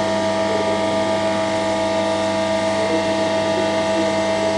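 Hydraulic pump unit of a Lancaster undercarriage test rig running steadily, a constant hum with a strong mid-pitched whine, as it drives the main undercarriage jacks that break and hold the geometric lock.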